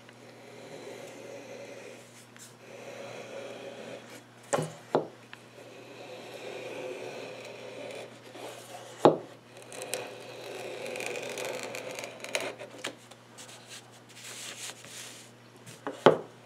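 Hand-held wooden slicing gauge with a steel cutter drawn along thin soft maple veneer in several long scraping strokes, slicing off a strip of inlay stringing. A few sharp knocks come between strokes, the loudest about nine seconds in.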